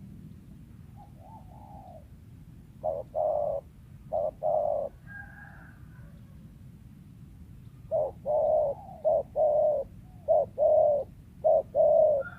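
Spotted dove (tekukur) cooing in short phrases of deep, repeated hoots, with a longer run of coos in the last few seconds. Another bird gives a brief higher call about five seconds in.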